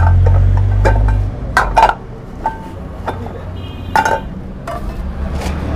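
Iron pans knocking and clinking against each other as they are shifted in a stacked pile, a few sharp clanks, some with a short metallic ring. A low rumble underlies the first second or so, then fades.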